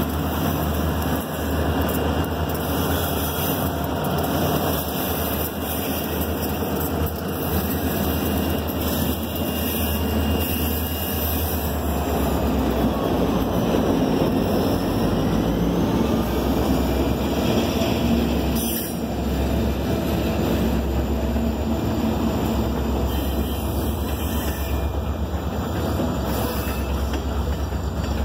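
A Great Lakes Central grain train passing close by: its diesel locomotives running under power, then loaded covered hopper cars rolling past with steady wheel-on-rail noise. One sharp knock about two-thirds of the way through.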